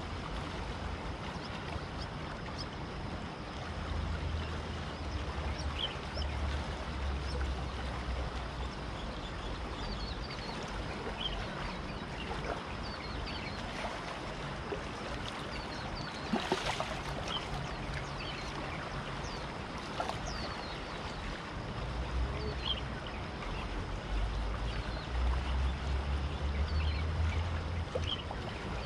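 Riverside ambience: a steady hiss with a low rumble that comes and goes, and scattered short bird chirps. A single brief sharp noise about halfway through.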